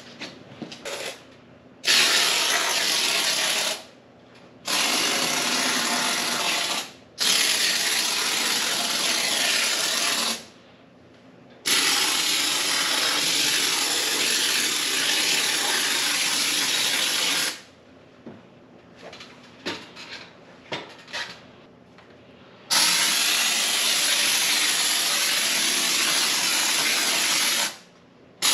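Polyurethane spray foam hissing out of a can on a foam-dispensing gun in five long bursts of two to six seconds each, with short pauses between them and a few light clicks before the last burst.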